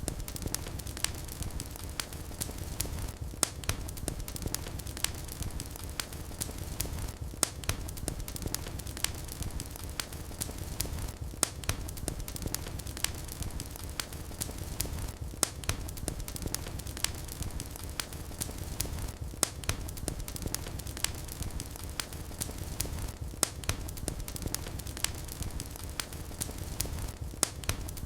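Wood fire in a fireplace crackling, with frequent sharp irregular pops over a steady low rumble of flames. The crackle pattern repeats about every four seconds.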